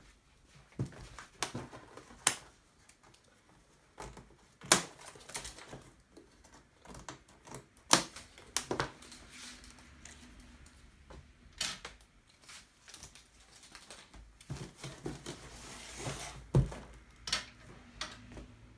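Handling of a large cardboard monitor box: irregular taps, scrapes and rustles as a plastic packing strap is pulled off and the box is tipped over and laid flat on a wooden floor, with a few sharper knocks.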